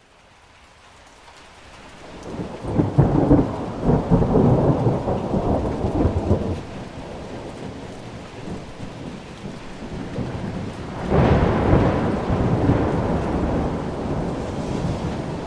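Thunderstorm: a steady hiss of rain fades in from silence. A long roll of thunder rumbles a few seconds in, and a second thunderclap breaks sharply about two-thirds of the way through and rolls away slowly.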